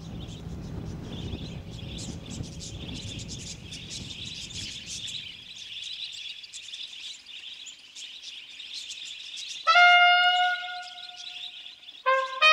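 Dense chirping chorus with a low rumble beneath that dies away about halfway through. About ten seconds in a trumpet enters loudly with a long held note, then plays a short run of notes near the end.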